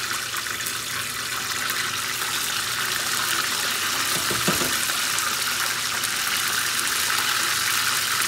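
Chicken wing flats deep-frying in hot corn oil in a steel pot: a steady, dense sizzle and crackle. A brief knock about halfway through.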